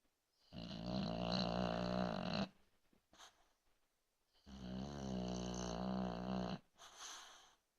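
Snoring during sleep: two long snores of about two seconds each, a couple of seconds apart, with short soft breaths out in the quiet between them.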